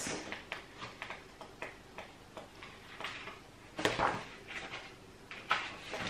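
Pages of a large picture book being leafed through: a run of soft paper flicks and rustles, with one sharper page flap about four seconds in.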